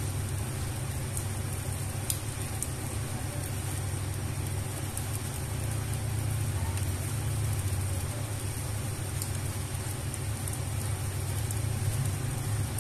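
Rain falling on wet concrete, a steady hiss with a few sharp ticks, over a steady low rumble.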